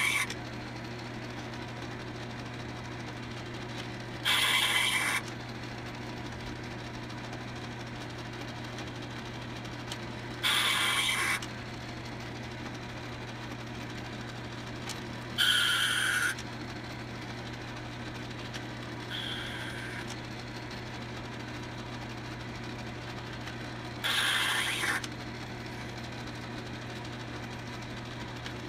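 Logan 10-inch lathe running with a steady hum while an internal thread is cut in a brass sleeve; about every five seconds a roughly one-second burst of high-pitched cutting noise comes as the threading tool takes a pass, five times, one of them fainter.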